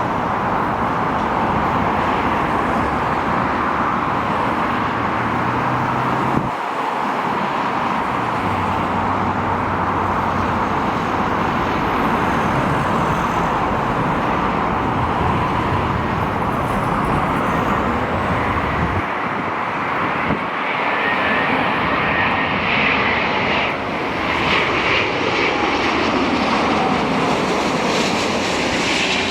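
Jet airliner engine noise, a steady, even rush of sound that does not let up. The low rumble drops out briefly twice, and a higher hiss builds in the later part.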